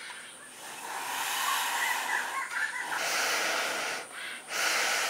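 A person blowing hard through a long thin blowpipe into glowing charcoal to fan the fire: a steady rushing hiss of air in two long blows, with a short pause for breath just after four seconds in.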